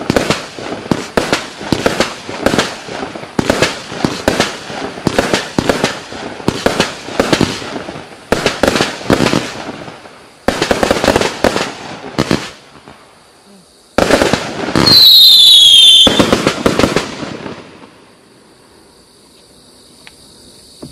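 A 268-shot, 20 mm calibre firework cake (Klasek Profi Fireworks Show 268) firing in rapid volleys of shots and bursts, about three to four a second, with a brief pause in the middle. Near the end comes the loudest stretch, with a falling whistle over the bangs, then the firing stops.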